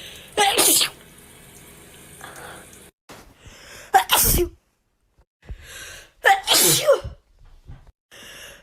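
A person sneezing wetly three times: each a spray of breath with a voiced cry that falls in pitch, about half a second in, about four seconds in and a little past six seconds. Short intakes of breath come before the second and third.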